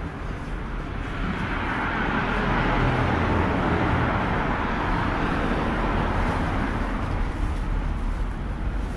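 Street traffic on a busy road: a vehicle passes close by, its noise swelling over a couple of seconds and fading away again, over a steady low rumble of traffic.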